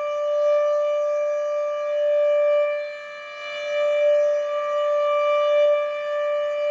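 Federal Signal Thunderbeam RSH-10B tornado siren sounding a steady single-pitch wail during a test, its loudness swelling and fading as the rotating horn turns, with a marked dip about three seconds in.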